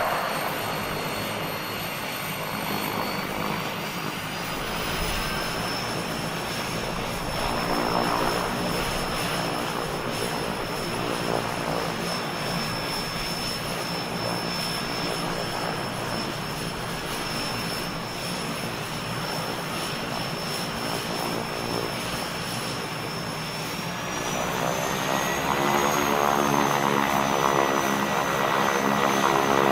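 Engine of a WWI Curtiss JN-4 Jenny biplane idling with its propeller turning, then given a light rev about three-quarters of the way through: pitch and loudness rise and hold at the higher speed.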